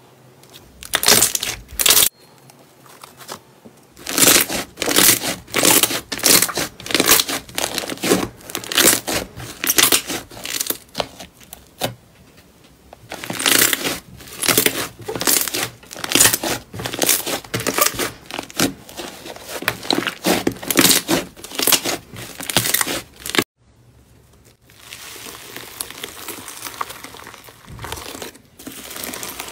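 Slime being pressed and kneaded by hand, giving sticky crackling pops about twice a second. After a cut about three-quarters of the way through, a hand stirs through loose foam pieces with a softer, continuous rustling.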